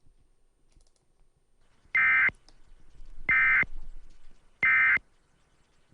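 Emergency Alert System end-of-message data tones: three short, identical buzzing digital bursts about 1.3 seconds apart, closing the alert.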